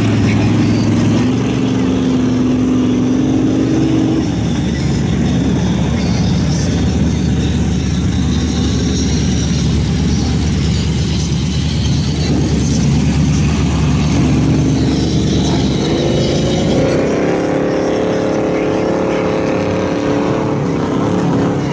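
Swamp buggy's engine running under load as the buggy churns through deep mud on its big tractor tires, revving up about a second in and again in the last few seconds.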